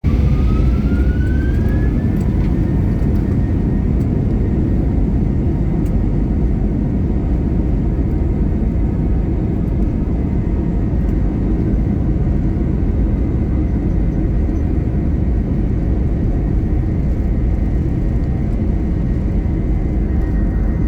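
Airplane engines at takeoff power: a loud, steady rumble, with a whine that rises over the first two seconds and then holds as a steady high tone.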